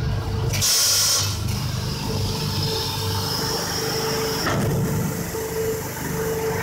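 Paper-pulp egg tray forming machine running with a steady low hum and a steady tone above it, and a short loud burst of hissing air about a second in.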